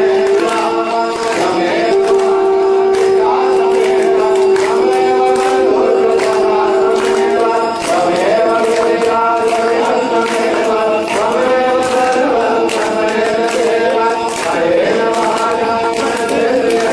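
A group of voices singing a devotional Hindu chant together, with long held notes and a steady accompaniment.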